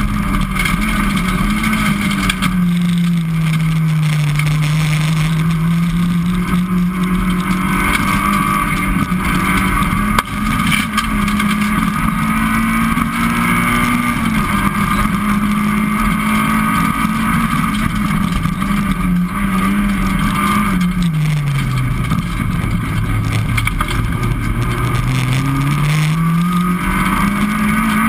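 Citroën Saxo VTS N2 rally car's 1.6-litre 16-valve four-cylinder engine, heard from inside the cockpit at stage pace over steady road noise. The engine note rises and falls, dropping to its lowest about three-quarters of the way through before climbing again.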